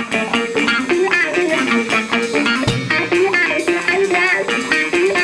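Funk-rock band playing an instrumental intro: a busy electric guitar riff, with bass guitar coming in strongly about two and a half seconds in.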